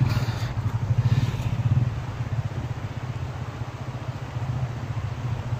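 Small motorcycle engine running at low speed, a steady pulsing hum that is loudest in the first two seconds and then settles.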